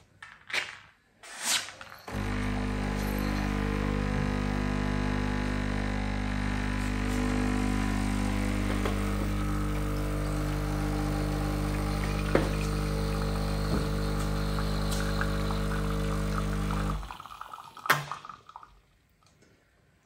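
Sage (Breville) Bambino Plus espresso machine's vibratory pump humming steadily while it pulls a double shot of espresso. It starts about two seconds in and cuts off a few seconds before the end, followed by a single sharp knock.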